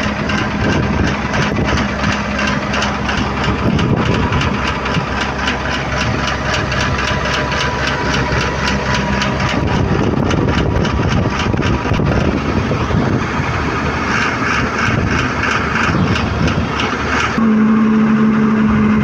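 Diesel engine of a Doosan DX140 excavator running loudly and steadily while blowing heavy white exhaust smoke, a fault the owner puts down to the fuel injectors. Near the end the sound changes to a steadier hum.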